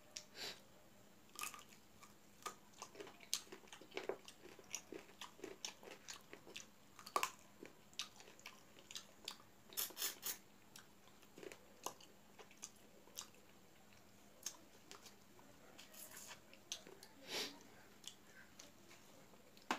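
Mouth sounds of a man eating chicken curry and rice by hand: chewing and lip-smacking, made up of many short, irregular wet clicks and smacks.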